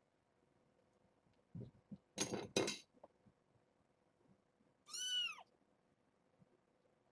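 A kitten gives one short, high mew that rises and falls, about five seconds in. Around two seconds in, a brief burst of clattering noises, louder than the mew.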